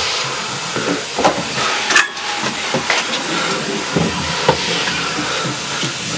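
Vacuum cleaner running with a steady hissing drone, with a few faint knocks over it.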